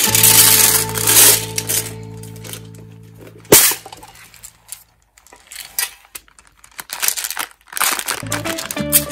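Background music holds a fading chord, then stops. About three and a half seconds in, a single sharp snap comes as the metal tin race-car container's lid is pulled open. Quieter crinkles and clicks of handled candy packets follow, and the music starts up again near the end.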